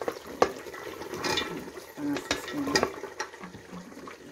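Cauliflower florets tipped into a cooking pot of chicken: a series of sharp knocks and clatters, with hissing from the hot oil underneath.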